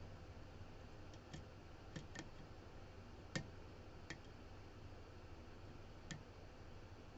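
Faint, scattered clicks of a lock pick working the pins of a CX5 lock, about seven in all, the loudest about three and a half seconds in, over a steady low hum.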